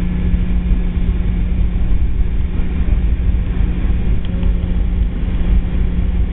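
Boeing 717-200 airliner heard from inside the cabin on the ground after landing: a steady low rumble with a constant hum.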